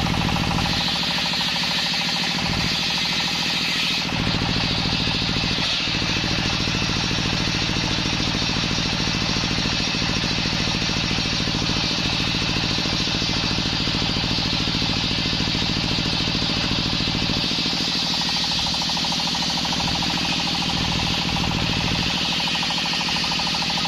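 Belt-driven circular saw bench ripping a waru log lengthwise, its driving engine running steadily under load while the blade cuts through the wood.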